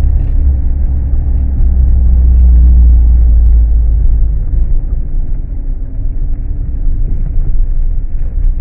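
A car running with a deep, steady low rumble and engine hum, loudest a couple of seconds in and easing slightly after.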